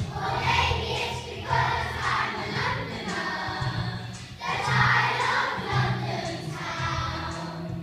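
A group of young children singing together in unison with instrumental accompaniment, the sung phrases broken by short pauses for breath.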